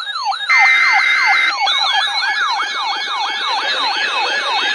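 Emergency weather alert tones: a repeating falling electronic sweep, about three a second, layered with a higher warbling tone. About half a second in, a loud buzzing data-header burst plays for about a second, one of the repeated alert headers.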